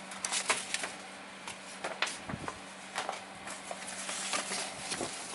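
Resin model-kit parts and their plastic packaging being handled: irregular crinkling rustles and light clicks, over a faint steady hum.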